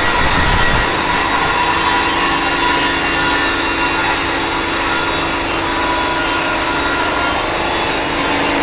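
A power tool running steadily against the truck body's metal, loud and continuous, with a steady hum underneath that firms up about a second in.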